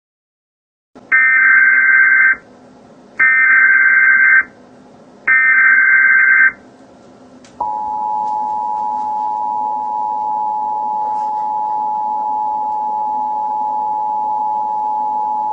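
Emergency Alert System header: three short bursts of screechy digital data tones (the SAME header) about a second apart, followed by the EAS two-tone attention signal, a steady dual tone held for about eight seconds.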